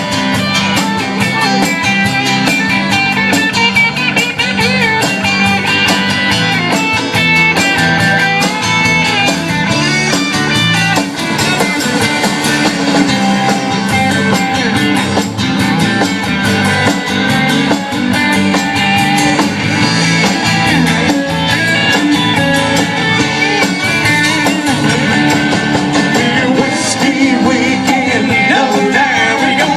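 Country-rock band playing live through an instrumental stretch of the song, with guitar to the fore over a steady beat.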